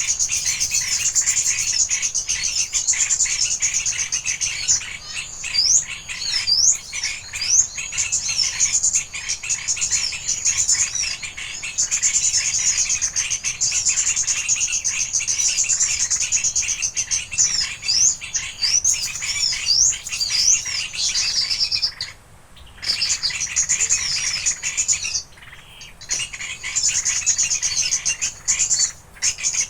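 Small birds chirping and trilling: a dense, fast, high trill that runs on, with quick rising chirp notes over it. The trill breaks off briefly twice in the last third.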